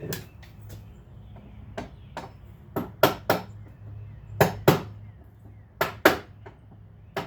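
Sharp metal taps, a tool knocking dried paint out of the slots of door-hinge screw heads. They come in quick groups of two or three, with a few fainter taps before them.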